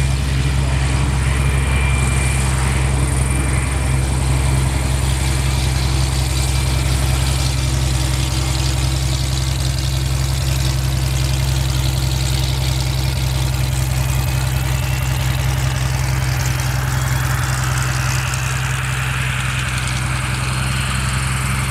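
MXS aerobatic plane's piston engine and propeller running steadily at an even, unchanging pitch.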